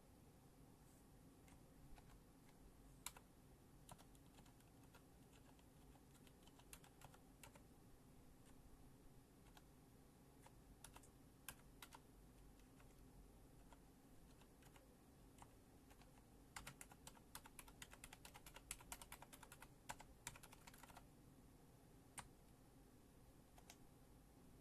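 Keys of a Cherry MX Board 2.0S mechanical keyboard being pressed, faintly: scattered single keystrokes, then a quick run of many keystrokes about two thirds of the way through.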